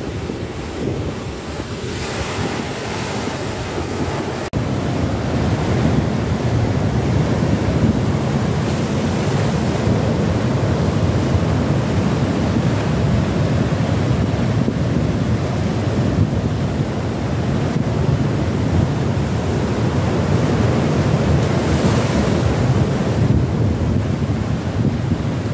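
Sea surf breaking and washing over a rocky shore, with wind buffeting the microphone as a heavy low rumble. It gets louder about four seconds in, and brighter hissing washes of breaking waves come near the start and near the end.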